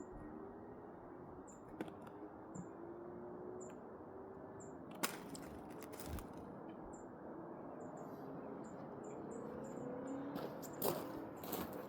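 Small birds giving short, high chirps about once a second, with a cluster of sharp clicks and taps near the end, like birds pecking at seed. A faint steady low rumble runs underneath.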